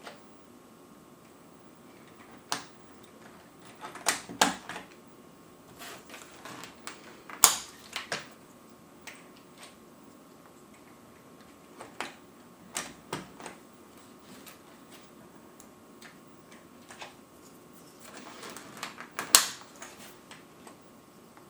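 Plastic keycaps being pushed onto an Amiga keyboard's key switches: irregular sharp clicks and snaps, some in quick clusters, the loudest about 7 and 19 seconds in.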